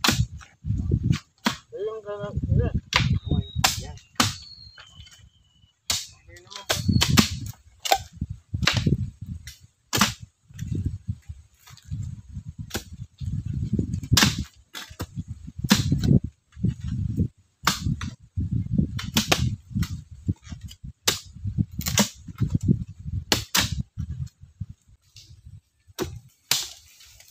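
Irregular sharp knocks, about one or two a second, each with a dull thud under it. A few brief high chirps sound a few seconds in.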